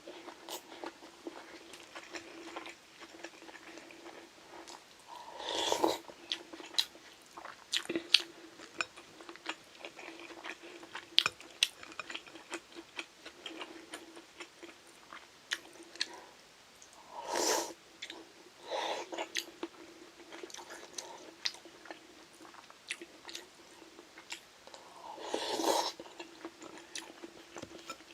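Close-miked chewing and crunching of food, full of small mouth clicks, with three louder rushes of about a second each spread through. A faint steady hum runs underneath.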